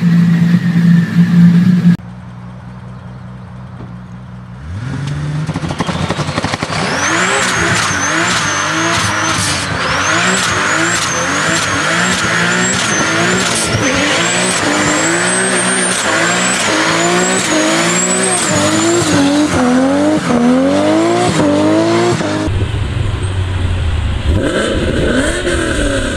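A forced-induction car engine accelerating hard through the gears: its pitch climbs and drops back over and over, with a high whine rising and falling along with the revs. Shorter clips of other engines come before and after it.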